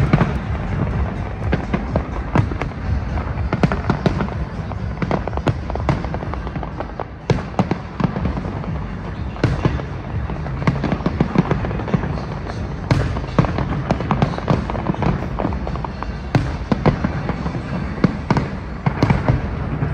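Fireworks display bursting overhead: a dense, irregular run of sharp bangs and crackles, with a few louder bangs standing out, over a steady low rumble and music underneath.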